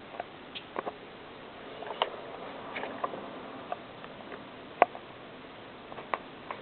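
A small pet sneezing repeatedly while it eats: a scattered series of short, sharp little sneezes and chewing clicks, the loudest about five seconds in.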